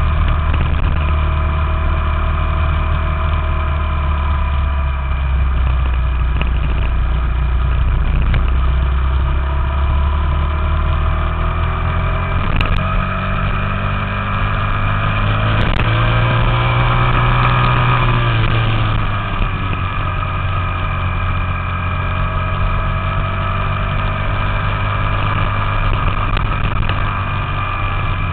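A small Honda four-stroke engine runs steadily under way, heard from the moving bike over a rush of wind and road noise. About two-thirds of the way in, its pitch climbs and then falls back once.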